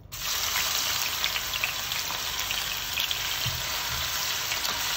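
Grated onion sizzling steadily in hot cooking oil in a nonstick pan, starting abruptly as it goes in and spitting with many small crackles as the onion's water meets the hot oil.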